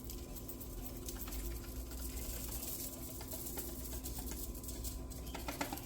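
Faint patter and light clicks of seasoning being shaken from a shaker onto raw marinated chicken, over a steady low hum, with a few quicker clicks near the end.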